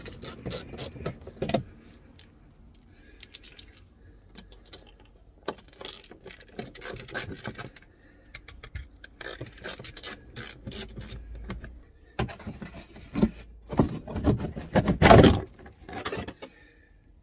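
A VW Passat B6's plastic wheel arch liner being unfastened and pulled free, with scattered clicks and scrapes of the screwdriver and plastic fasteners. A cluster of louder scraping comes near the end as the liner is worked loose, the loudest about three quarters of the way through.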